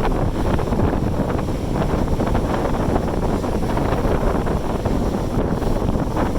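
Wind buffeting the microphone, a steady low rumble, with ocean surf in the background.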